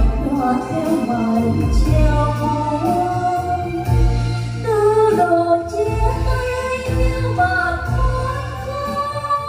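A woman sings a slow Vietnamese song into a wireless karaoke microphone over a backing track. Both come through WeeWorld C12 karaoke speakers with an S1800 subwoofer, which adds a deep bass hit about once a second.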